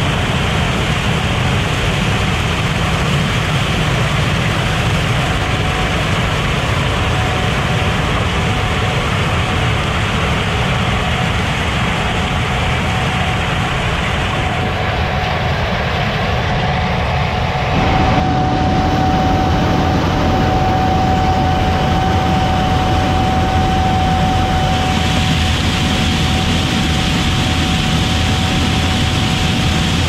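Gleaner S97 combine running under load while harvesting corn: a steady, loud engine and machinery noise with a constant whine. The sound shifts abruptly about halfway through and again near the end.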